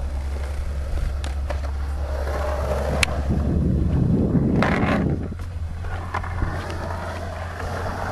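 Skateboard wheels rolling and carving across a concrete bowl, with a few sharp clacks and a louder rush of rolling about four seconds in, over a steady low rumble.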